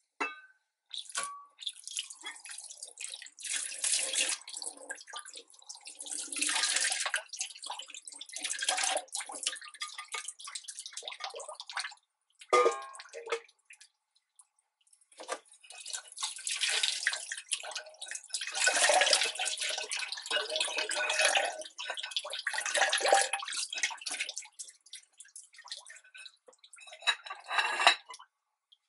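Water splashing and pouring in a stainless steel sink as dishes are rinsed by hand, in two long stretches with a pause a little before the middle. A short knock of a dish against the sink comes in that pause.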